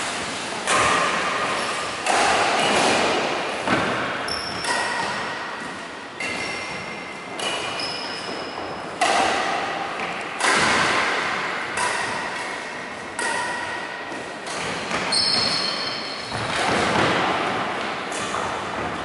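Badminton rally in a large echoing hall: sharp racket strikes on the shuttlecock about every one to one and a half seconds, with short high shoe squeaks on the wooden court between them.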